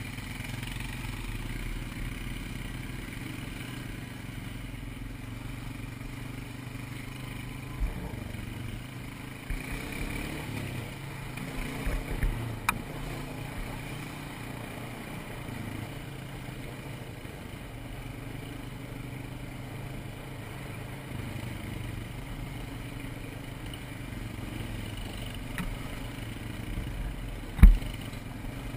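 ATV engine running steadily on a trail ride, with a few scattered knocks and one loud thump near the end.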